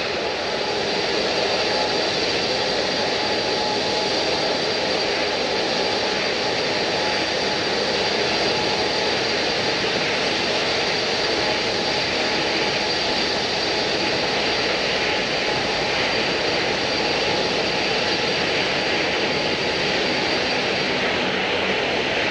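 Jet airliner engines running steadily: a constant noise with a faint high whine that fades near the end.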